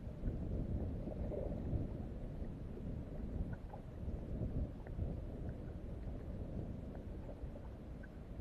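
Low, steady rumbling of wind buffeting the microphone and water against a boat's hull, with faint scattered small ticks.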